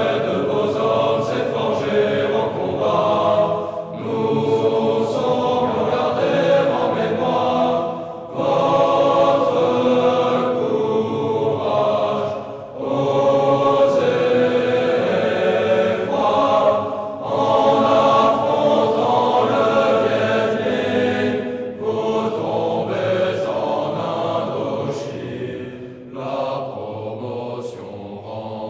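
A chorus of voices singing a French military promotion song (chant de promotion), in phrases of about four seconds with short breaks between them, fading near the end.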